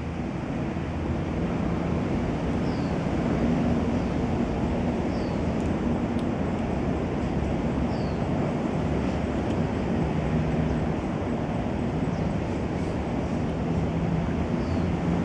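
Steady outdoor background rumble with a faint low hum coming and going, and four short, high, falling chirps scattered through it.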